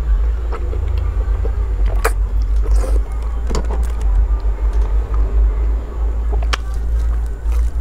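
Close-up mouth sounds of someone eating soft, fatty food: wet sucking and chewing, with a few sharp clicks scattered through. A steady low rumble runs underneath and is the loudest thing.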